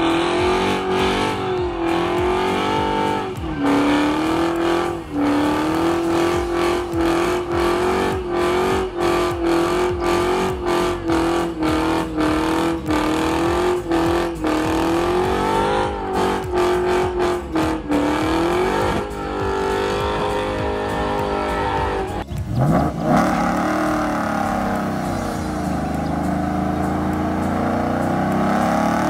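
2010 Dodge Challenger SRT8's 6.1-litre Hemi V8 with Kooks headers, loud exhaust, held at high revs during a burnout with the rear tyres spinning, dipping briefly a few times. After a cut about two-thirds through, the engine revs up again for a second burnout and then settles.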